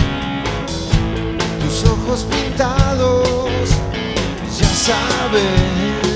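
Rock band playing live: guitars over a steady drum beat, about one drum hit a second, with a wavering melodic line on top.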